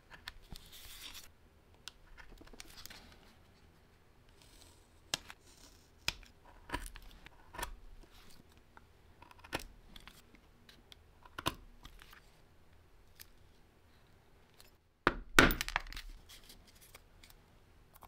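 Quiet scrapes, taps and rustles of leatherworking hand tools, a paper pattern and small leather pieces being handled and worked on a cutting mat, with a louder burst of scraping and knocking about fifteen seconds in.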